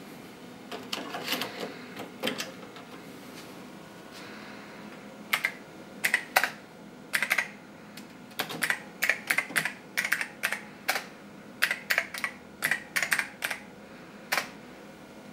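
A 3.5-inch floppy disk pushed into the drive of a Commodore PC30-III with a short clatter. Then the PC's keyboard is typed on in quick runs of sharp clicks, several keystrokes a second, with short pauses between commands.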